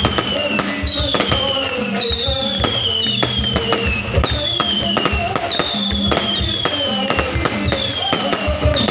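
Fireworks going off in a rapid barrage: a falling whistle repeats about once a second among sharp bangs and crackle.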